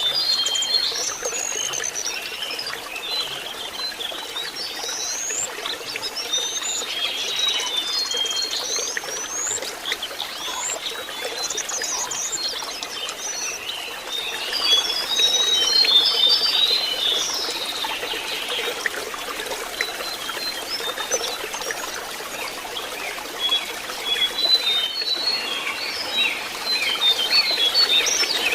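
Lesser shortwing (jongkangan) singing: quick high whistled glides and short chirping notes in varied phrases. It sings over a steady sound of trickling water.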